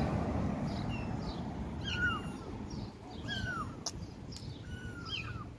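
A car passing on the street, its road noise fading over the first second or so, then a one-month-old kitten mewing several times in short, high calls.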